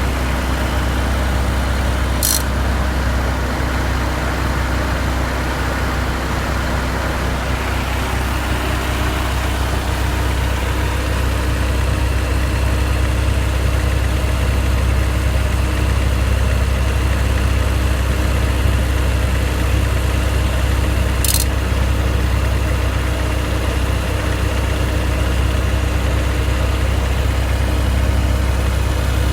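1991 Honda Civic 1.5-litre four-cylinder engine idling steadily with its Matsushita AC compressor switched on, giving a loud rapid ticking over the engine's hum. Two brief sharp high clicks stand out, one about two seconds in and one about two-thirds of the way through.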